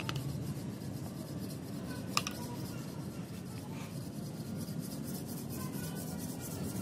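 Gloved hands pressing and smoothing sand packed in a steel casting flask, a soft rubbing and scraping over a steady low rumble. There are two sharp clicks, one at the start and one about two seconds in.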